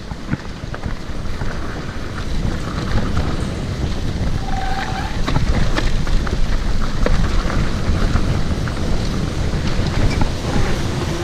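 Wind rushing over the microphone during a fast mountain-bike descent, with the bike clattering over rough ground in many scattered sharp knocks.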